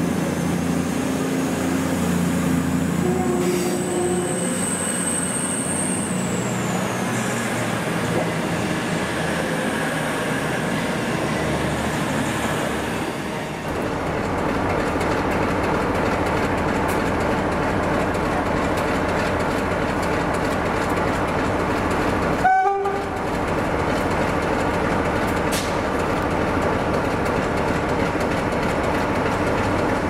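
Train running along the track, a steady rumble of wheels on rails, with a very short horn-like toot about three-quarters of the way through.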